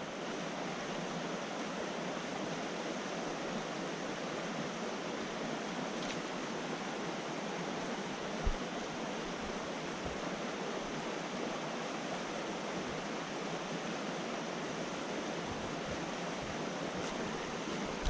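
Steady rush of a creek's flowing water, with one brief soft thump about eight seconds in.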